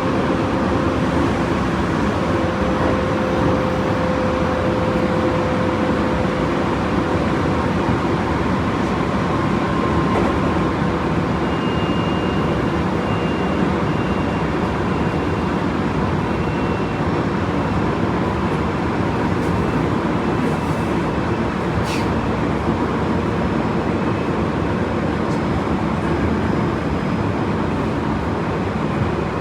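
Running noise inside a Tobu 30000 series electric train at speed: a steady rumble of wheels on rail, with faint steady tones from the drive equipment. One sharp click comes about 22 seconds in.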